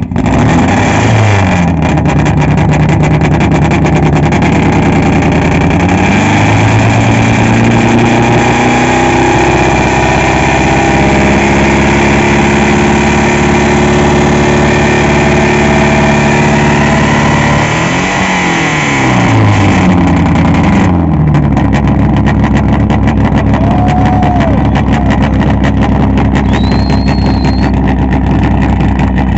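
Renault 18 GTX rally car's Oreste Berta-prepared four-cylinder engine being revved: a couple of quick blips, then held at high revs for about ten seconds, and after a short dip and blip it drops back to a steady idle about twenty seconds in.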